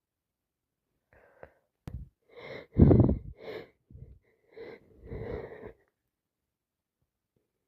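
A woman sneezing from a cold and allergies. A few breathy, voiced build-up breaths lead into one loud, wet sneeze about three seconds in, followed by several shorter breaths that trail off.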